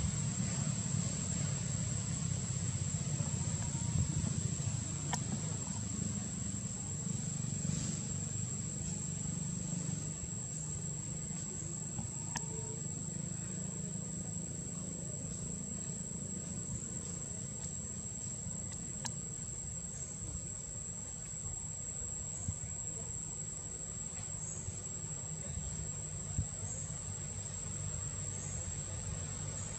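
Outdoor ambience: a steady high-pitched insect whine over a constant low rumble like distant traffic, with a few faint clicks.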